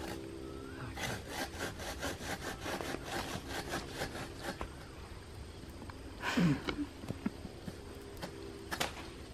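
Hand saw cutting through a hollow papaya trunk in steady back-and-forth strokes, about three a second, which stop about halfway through. A short, louder sound falling in pitch comes a little after six seconds, and a few more strokes follow near the end.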